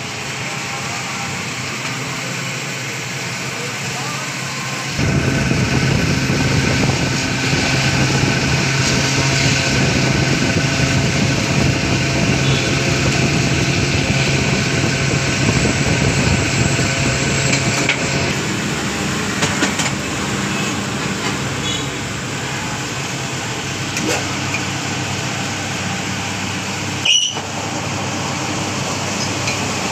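A motor runs with a steady low hum. It starts abruptly about five seconds in and eases off after about eighteen seconds, over workshop background noise.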